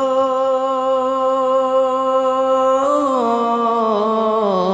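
A single voice singing a Bangla gojol (Islamic devotional song), holding one long note for about three seconds, then sliding down in pitch with small ornamental turns.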